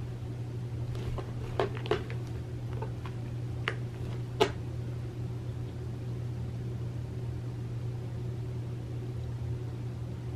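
Steady low room hum with a few light clicks and taps between about one and four and a half seconds in, from a cat moving on a cardboard scratcher and pawing a crocheted toy mouse on carpet.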